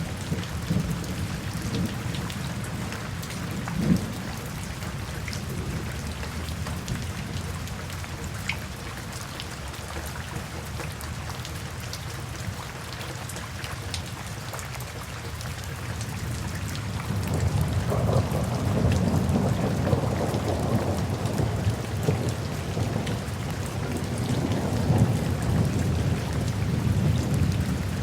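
Steady rain falling, with scattered taps of single drops. About two-thirds of the way through, a low rumble swells in and keeps rolling to the end.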